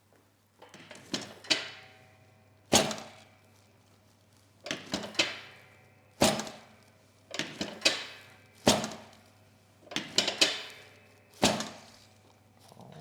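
Sharp knocks, one every second or two and sometimes two or three in quick succession, each with a short ringing tail, during the warm-up at the start of a chiropractic treatment.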